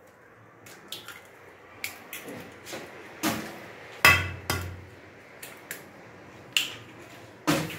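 Eggs being cracked on the rim of a stainless steel bowl: a series of sharp taps and clinks at irregular intervals, the loudest pair about four seconds in.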